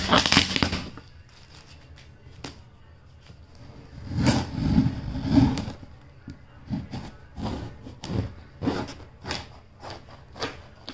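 Plastic wrap and a paper label crinkling as they are crumpled in the first second, then a knife scraping and slicing through the plastic film and packing tape on a cardboard box. The cutting is loudest around four to six seconds in, then goes on as short scratchy strokes about every half second.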